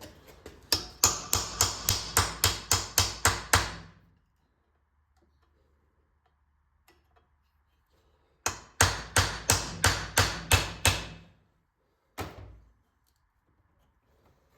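Hammer blows in two quick runs of about ten strikes each, three to four a second, then a single blow near the end. The hammering is trying to break loose a seized lock nut on the muffler of a Clinton 410 small engine.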